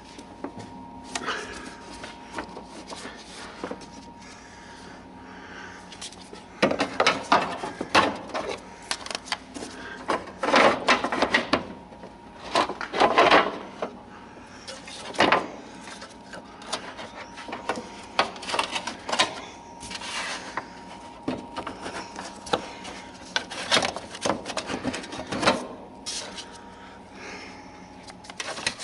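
Irregular scraping, rubbing and knocking as the old Saab handbrake cable and its sheath are pried and worked loose under the car, coming in clusters from about a quarter of the way in. A faint steady hum runs underneath.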